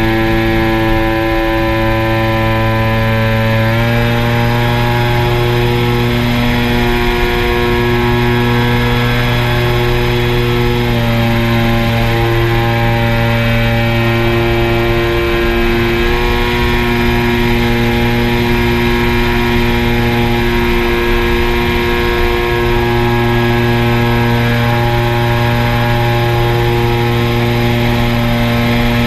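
Steady motor hum with a clear pitched whine, holding close to one pitch with small shifts up and down.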